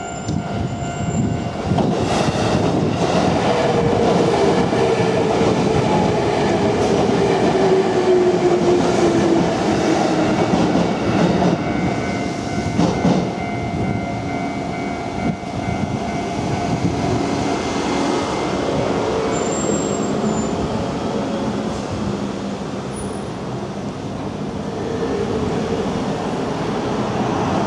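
A Japanese railway level crossing's electronic warning bell rings while an electric Nambu Line train runs over the crossing. The train's motor whine falls slowly in pitch as it goes by.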